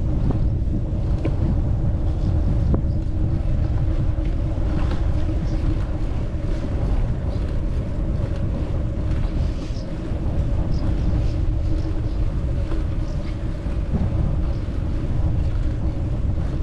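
Wind buffeting the microphone in a loud, uneven rumble, over a steady mechanical hum that holds the same pitch throughout.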